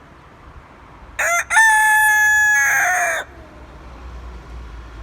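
Rooster crowing once, about a second in: a short opening note, then a long held note that falls away at the end, about two seconds in all.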